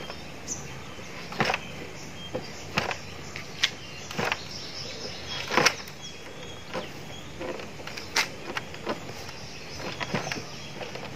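Oiled porotta (maida) dough being kneaded by hand on a table: short, irregular slaps and pats roughly once a second.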